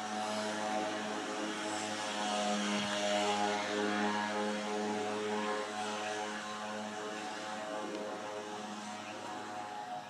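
Twin-engine jet airliner passing high overhead: a steady engine drone with a low hum and a hiss. It swells a few seconds in and slowly fades.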